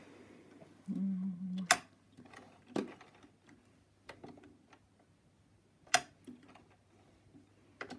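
Domestic sewing machine running in one short burst of stitching about a second in, followed by a few sharp, separate clicks, the loudest near two seconds and six seconds in.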